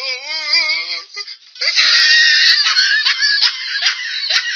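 Laughing sound effects: a high, wavering laugh for about a second, then after a short break a loud, dense laugh made of rapid repeated bursts.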